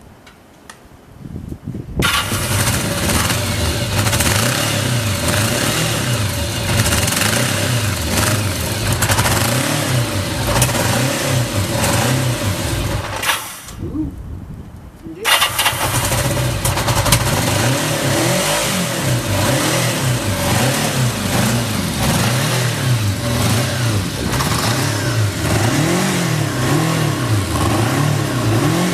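Motorcycle engine started on its electric starter, catching about two seconds in and running with an unsteady idle, as expected of a carburettor given only a quick overhaul. It dies about halfway through, is restarted a second or so later, and runs on with its speed rising and falling in repeated swells near the end.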